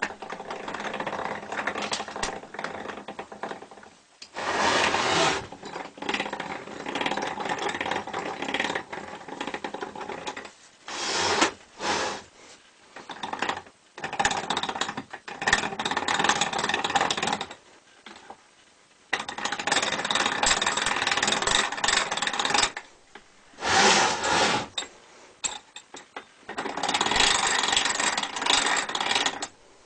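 Hand-cranked cut-away constant-mesh gearbox with its gear train spinning and rattling, the crank turned in spells of a few seconds that stop and start again.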